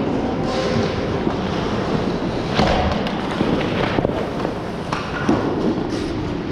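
Ice hockey play on a rink: skate blades scraping the ice over a steady din, with a few sharp clacks of sticks, puck or boards.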